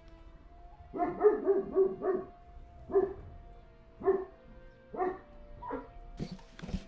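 A dog barking repeatedly, one short bark about every second, over a faint steady tone.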